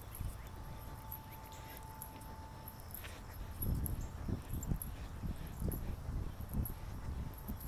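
Footsteps of a person walking in sneakers on an asphalt path, heard through a hand-held phone with a low rumble on the microphone; the thuds grow louder and more frequent about halfway through. Faint high ticking of insects runs underneath.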